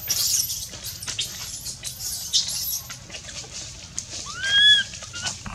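Macaque calling: a short rising coo about four and a half seconds in, the loudest sound, after a run of very high, thin squeaks and rustling in the first three seconds.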